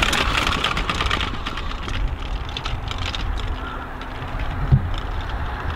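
Fat-tyre electric bike passing close on dry grass and sandy dirt, its tyres rolling, then fading as it rides away. Wind rumbles on the microphone throughout, with a short thump about three-quarters of the way through.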